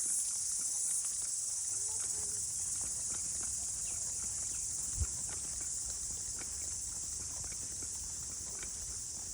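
Steady high-pitched insect chorus, with scattered faint clicks and a single low thump about five seconds in.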